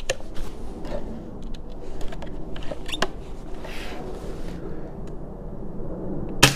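A few faint clicks of handling, then near the end a single sharp shot from a .22 Nova Vista Alpha pre-charged pneumatic air rifle fired on its high power setting.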